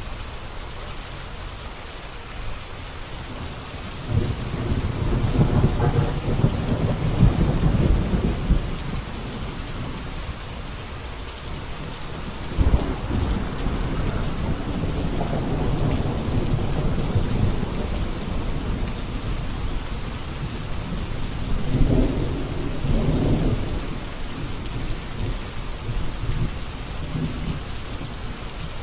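Steady rain falling, with rolling thunder. One long rumble starts about four seconds in, a sudden clap a little before halfway rumbles on for several seconds, and another rumble comes past three quarters of the way through.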